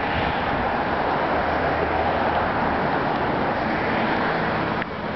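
Motor vehicle going by on the road: engine and tyre noise, loud and steady for about five seconds, falling away near the end.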